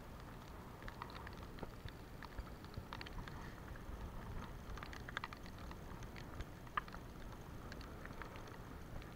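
Faint, irregular ticking and crackling over a steady low wind rumble on the microphone.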